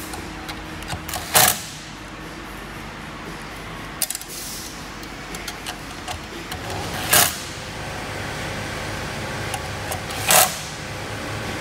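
A cordless power driver runs screws into a car stereo's side mounting bracket in three short bursts, with small metal clicks of the screws and bracket being handled in between.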